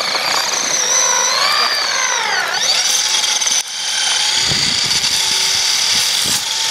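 Small electric motor of a toy RC car whining loudly, its pitch rising and falling with the throttle and dropping sharply about two and a half seconds in. After a brief break it runs on at a steadier pitch, with low rumbling knocks as the car bumps over the ground.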